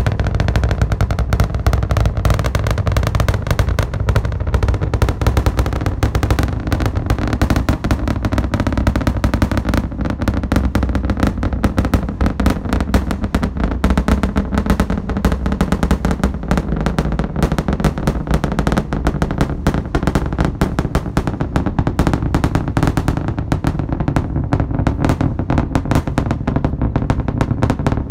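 Roar of the Starship Super Heavy booster's 33 Raptor engines, heard from miles away: a dense, rapid crackle like gunfire over a deep, continuous rumble.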